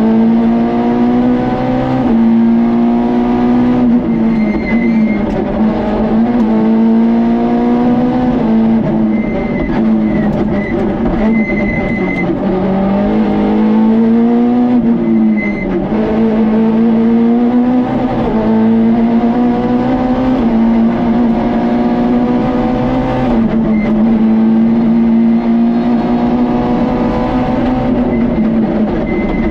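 Peugeot 106 rally car's four-cylinder engine heard from inside the cockpit, driven hard on a stage. The engine note climbs in pitch through each gear and drops sharply at every shift, several times over, with brief dips where it lifts for bends.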